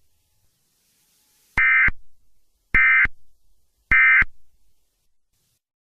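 Emergency Alert System end-of-message tones: three short, harsh digital data bursts, each about a third of a second long and about a second apart, signalling the end of the alert.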